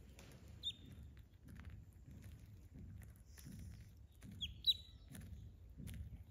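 Duckling peeping: three short, high peeps, one about half a second in and two close together a little past the middle, the last the loudest.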